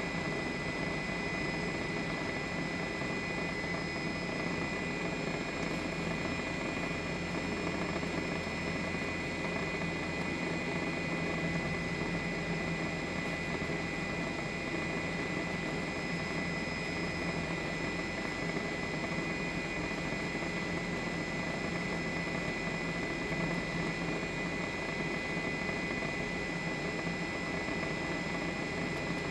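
Steady drone of a news helicopter's engine and rotor, heard from on board, with a constant high whine over it.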